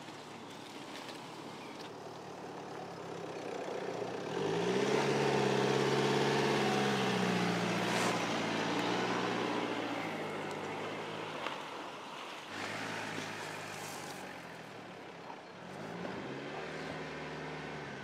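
Mercedes-Benz GLC 300d SUV's four-cylinder diesel engine pulling off-road, over tyres crunching on dirt. The engine note rises in pitch and gets louder about a quarter of the way in as the SUV passes close, stays loud through the middle, then rises again near the end as it drives up the slope.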